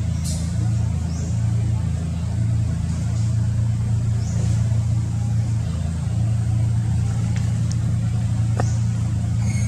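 A motor vehicle engine running steadily with a low, even hum, with a few faint clicks over it.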